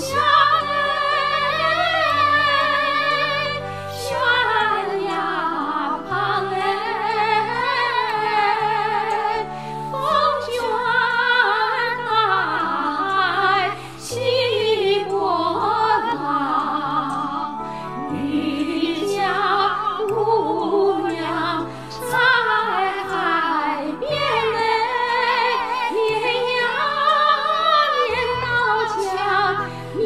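Two women singing a Chinese song together as a female duet, over instrumental accompaniment with held low notes.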